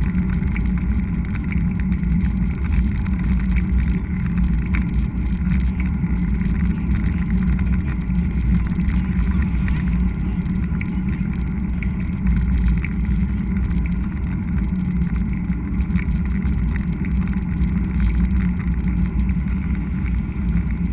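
Steady low rumble of wind on an action camera's microphone while riding a mountain bike, mixed with tyre noise on the trail and a few faint rattling clicks.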